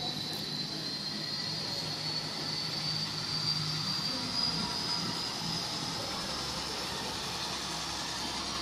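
00 gauge model train running on the layout: a high, thin motor whine that slowly rises in pitch, over a steady hiss.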